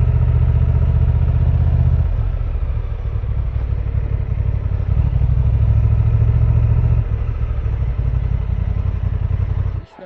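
Honda Transalp 750 motorcycle's parallel-twin engine running as the bike is ridden, with a deep, steady rumble. It drops about two seconds in, picks up again about five seconds in, drops once more near seven seconds, and cuts off abruptly just before the end.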